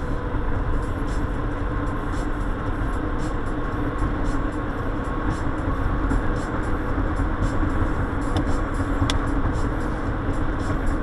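Steady road and engine noise of a moving car heard from inside the cabin: a constant low rumble with a faint hum, and one small click about nine seconds in.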